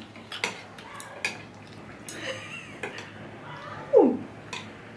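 Light clicks and taps of chopsticks against a dish while eating noodles. About four seconds in comes one short call that slides down in pitch; it is the loudest sound.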